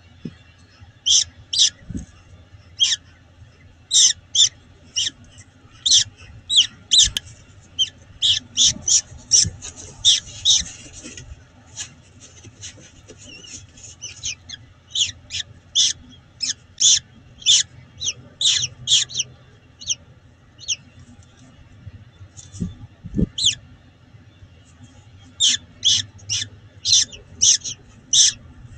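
Newly hatched peregrine falcon chick peeping: short, high, thin cheeps in quick runs of several a second, broken by a few short pauses. A faint low hum runs underneath, with a couple of soft knocks.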